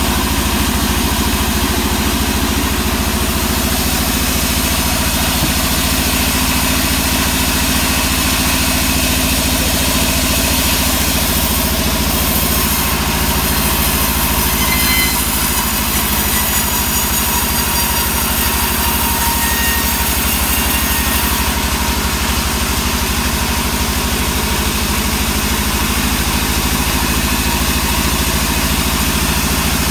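Band sawmill running with a steady, loud mechanical drone, and a brighter hiss rising for several seconds around the middle.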